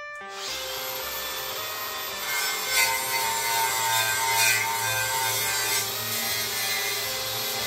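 A power tool scouring rust off a steel car frame: a continuous gritty grinding over a steady motor whine. It gets a little louder about two and a half seconds in.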